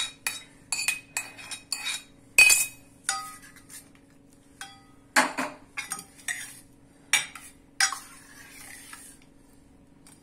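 A spoon clinking and scraping against cookware as a spiced, tempered curd mixture is added to more curd and stirred in: irregular sharp clinks, the loudest about two and a half seconds in. A faint steady hum runs underneath.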